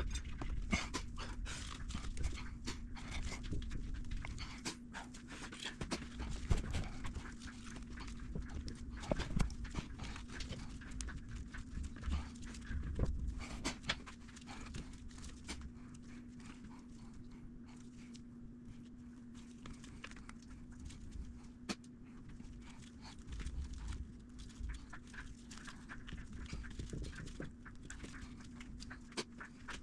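Hands fitting motorcycle throttle bodies onto the engine's intake: scattered clicks and knocks of parts and tools, irregular throughout, over a steady low hum.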